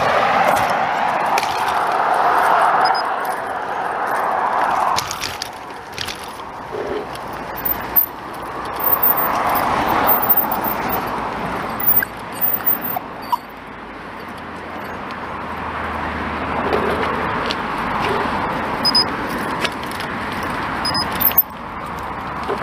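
Road traffic passing on a busy main road, rising and fading in several swells, the loudest in the first few seconds. Short clicks and jangles scattered through the middle.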